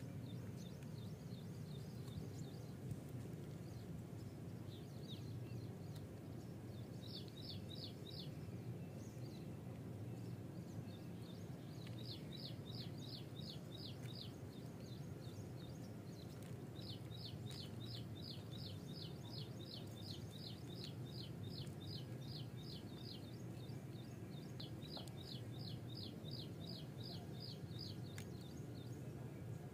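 A small bird calling in repeated bouts of quick, high, short chirping notes, about four a second, over a steady low outdoor rumble.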